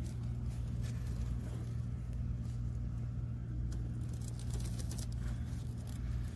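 Steady low hum with faint scattered clicks and taps of a hand tool working a hose clamp on a fuel-filter line.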